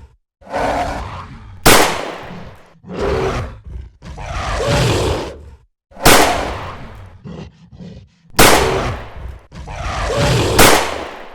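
Animal roars and growls alternating with sharp, very loud gunshot-like bangs, four of them spread over the stretch, most likely sound effects for the gorilla and the Nerf blasters.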